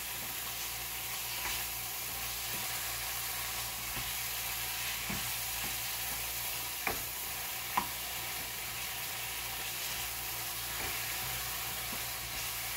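Chicken pieces with tomatoes and spices sizzling steadily in oil in a non-stick wok over a gas flame, stirred with a metal ladle. Two sharp taps of the ladle against the pan come about a second apart, near the middle.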